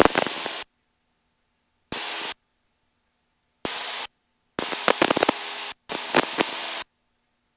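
Aircraft headset intercom cutting in and out: short bursts of hiss and cockpit noise, five times, each cut off abruptly into dead silence as the voice-activated squelch opens and closes on the climb-out.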